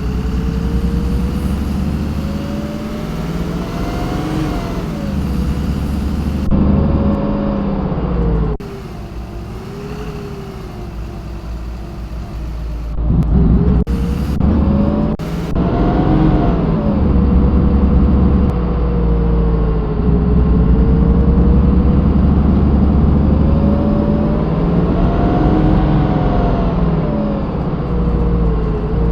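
Iveco Crealis bus drivetrain running, its pitch rising and falling smoothly several times as the bus speeds up and slows, over a steady low rumble. The sound breaks off abruptly a few times.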